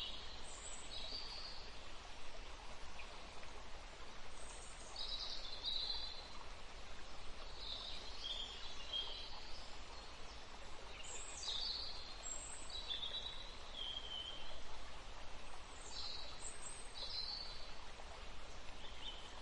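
Small songbirds chirping and singing in short high phrases every second or two, over a steady background hiss with a low rumble.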